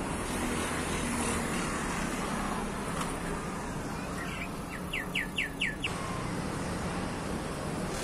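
A red-crested cardinal sings a quick run of about six short, downward-slurred whistled notes a little past the middle, over a steady background rumble like road traffic.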